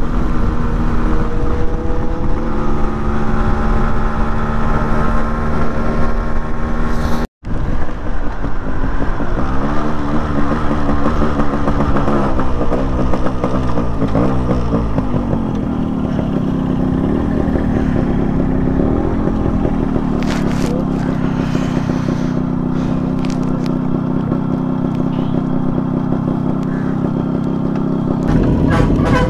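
Yamaha RX100's two-stroke single-cylinder engine heard from the saddle, running at a steady pitch while cruising. The sound cuts out for an instant about seven seconds in, then the pitch falls as the bike slows to a stop, and the engine settles into a steady idle.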